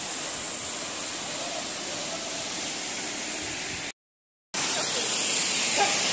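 Steady rush of a waterfall, with a steady high-pitched note over it in the first part. About four seconds in the sound drops out completely for half a second, then the water rush comes back brighter and hissier.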